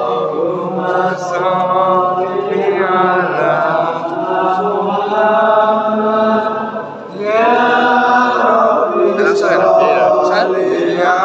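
Islamic devotional chanting: voices singing long drawn-out melodic phrases together, with a brief break about seven seconds in before the next phrase starts.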